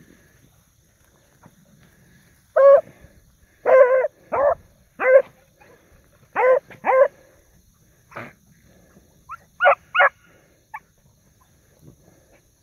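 Beagles baying in the brush, about ten short, pitched bays in irregular bunches that begin a couple of seconds in and die away near the end. The hounds are giving tongue while running a track.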